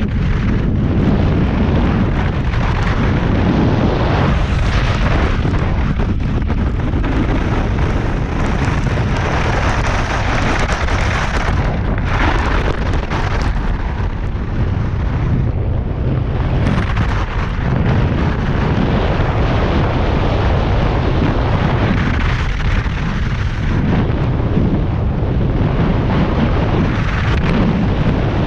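Heavy wind buffeting on a skier's action-camera microphone at race speed, over the hiss of Stöckli skis running on groomed snow. The higher hiss swells and eases every few seconds.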